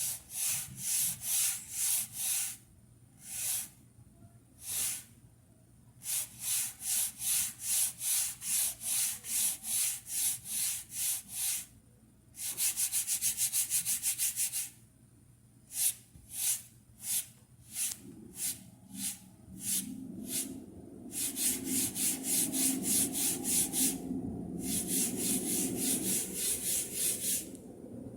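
Chalkboard eraser rubbed back and forth across a chalkboard in runs of short, hissy strokes, about two a second, with pauses between the runs. About halfway through comes a run of much quicker, shorter strokes.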